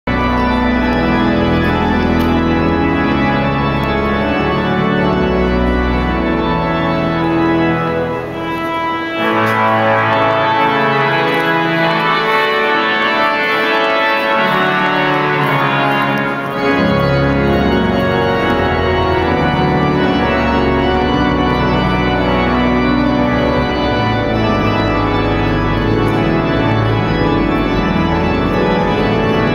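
St Albans Abbey pipe organ playing sustained full chords. The deep pedal bass drops out about nine seconds in, leaving brighter upper notes, and comes back about sixteen seconds in.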